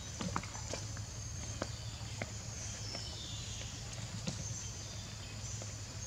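Outdoor forest ambience: a steady low hum and faint high chirping, with scattered sharp clicks and snaps at irregular moments.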